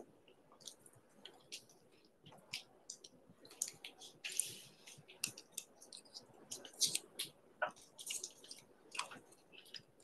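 Scattered faint clicks and taps at irregular intervals, with a short rustle about four seconds in.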